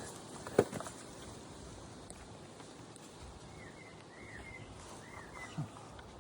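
A single sharp thump about half a second in, then a bird chirping a few short notes in the background, and a soft thud near the end.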